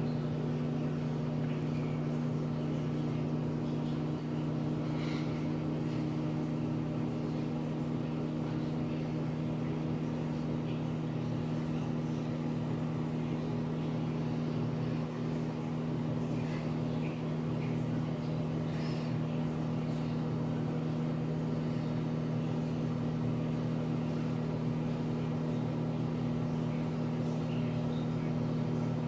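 Microwave oven running on a one-minute cook cycle: a steady, even hum throughout as it heats a cheese sandwich.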